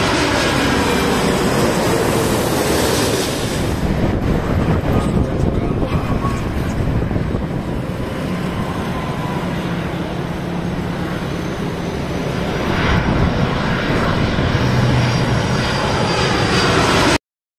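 Jet engines of an Airbus A330-200 on final approach with its landing gear down, passing low: a steady rumble of jet noise with a faint whine. It eases a little about four seconds in, builds again near the end, and cuts off suddenly.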